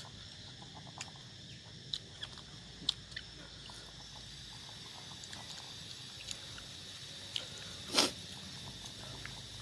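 Mouth sounds of a man eating, chewing with small wet clicks, and one short loud hissing breath about eight seconds in, drawn after very spicy food.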